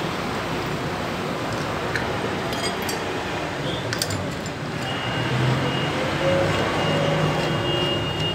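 A few light metallic clicks of a T-handle socket wrench working the clutch spring bolts of a motorcycle engine, over a steady background of vehicle noise with a low engine hum in the second half.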